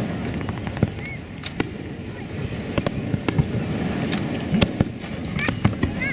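Aerial firework shells bursting in a display: about ten sharp bangs and crackles, spread irregularly across a few seconds over steady background noise.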